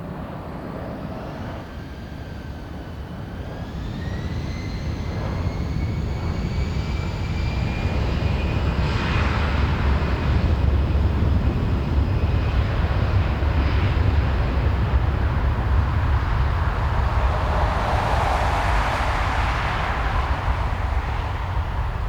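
Jet airliner taking off: a rising engine whine builds over a strong low rumble that grows loud and then eases slightly, with a broad burst of roar near the end.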